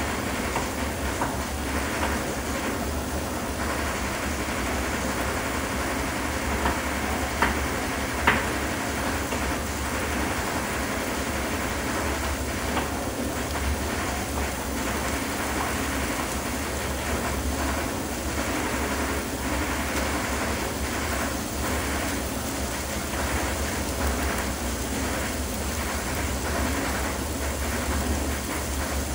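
Gravy and a pot of food simmering on an electric stove, a steady bubbling rush with fine crackle, and a few sharp knocks of a knife on a cutting board about seven and eight seconds in.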